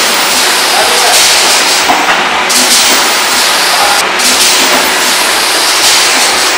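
Yogurt cup filling and sealing line running loudly: a steady mechanical din with a high hiss that drops out briefly a few times.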